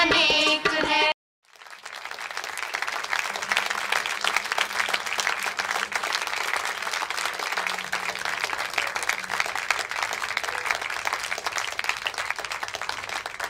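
A recorded film song with singing cuts off abruptly about a second in; after a brief silence, an audience applauds steadily.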